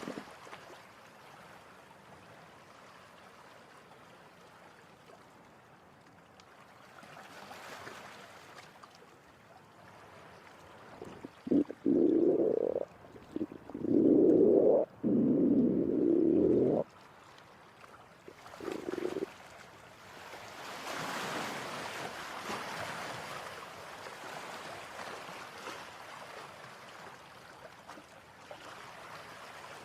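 Cartoon stomach-growl sound effect: a run of several loud, low growls close together about halfway through, with one short one after them, over faint steady background noise.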